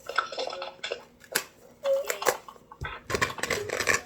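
Measuring spoons and utensils clinking and tapping against mixing bowls: a few sharp clinks, then a busier clatter near the end.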